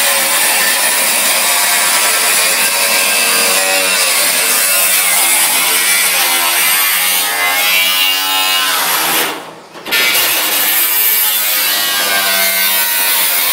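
Angle grinder cutting corrugated metal sheeting, running steadily, with a short break a little under ten seconds in.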